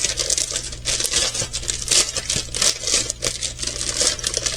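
Plastic packaging crinkling and rustling irregularly as the bags and parts of a diamond painting kit are handled and unpacked.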